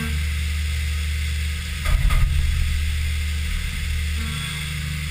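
Haas VF-3 CNC mill cutting aluminum with an end mill under flood coolant: a steady low spindle-and-cutting hum over the hiss of coolant spray. About two seconds in there is a brief, louder, uneven burst of noise.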